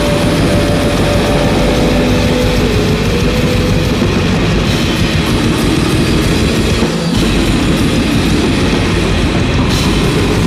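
Raw blackened war metal: a dense, loud wash of distorted guitars and drums, with a held high note above it that steps down to a lower pitch about three seconds in.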